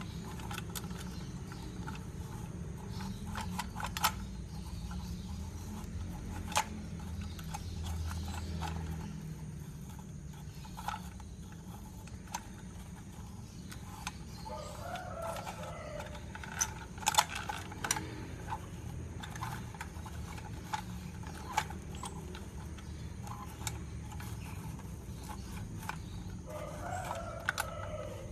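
Scattered clicks and taps of a tin Voltes V robot toy being handled as its head is fitted on, over a steady low hum. Twice, about halfway through and near the end, a drawn-out animal call sounds in the background.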